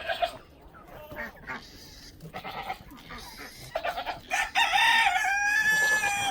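Rooster crowing: one long crow about four and a half seconds in, the loudest sound here, with quieter scattered clucking before it.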